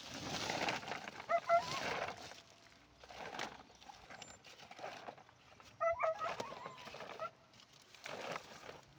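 Rustling of pepper plants and leaves during harvesting, with a bird giving short calls twice, about a second and a half in and again about six seconds in.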